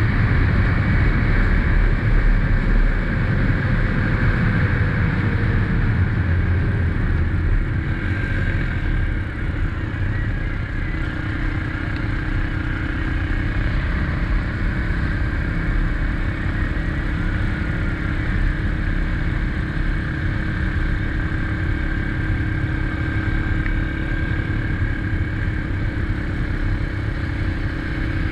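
Single-cylinder 250cc engine of an SSR XF250 dirt bike running under way, its note dropping over the first few seconds and then holding steady, with wind rumble on the microphone.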